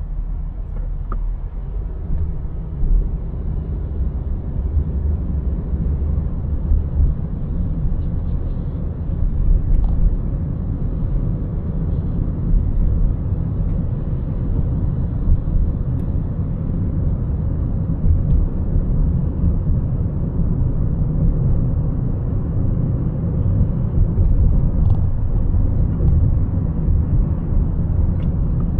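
Steady low rumble of a car on the move: road, tyre and engine noise heard while driving.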